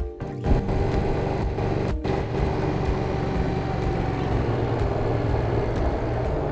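Motorcycle engine running steadily as the bike rides through a bend at low speed.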